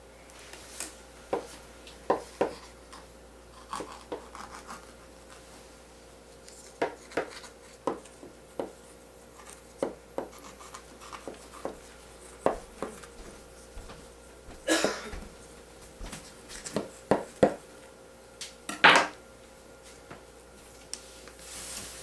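Kitchen knife trimming the excess crust from the edge of a pie: scattered, irregular clicks and scrapes as the blade works around the rim, with a few louder knocks in the second half.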